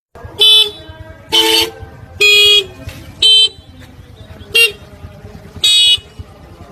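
Vehicle horn honking six times in short toots of uneven length, over a low background rumble.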